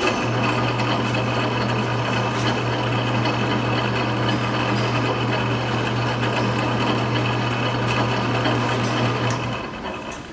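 Powermatic 143 14-inch band saw switched on with a click and running at speed: a steady motor hum under the whir of the blade and wheels. The hum cuts out near the end and the running noise dies away.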